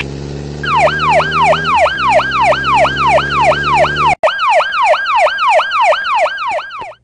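Police siren sound effect: a fast, repeating falling whoop, about two to three sweeps a second. It starts under a second in and breaks off briefly about four seconds in. A low steady hum lies under it until that break.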